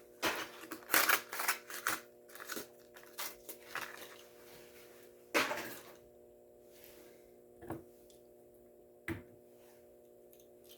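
A die-cast toy truck being taken out of its packaging: cardboard and plastic crackling, tearing and clicking for about six seconds, then two single clicks. A steady low hum runs underneath.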